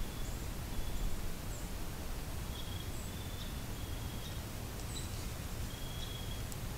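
Evening forest ambience: a steady low hiss and rumble with scattered faint, short high chirps.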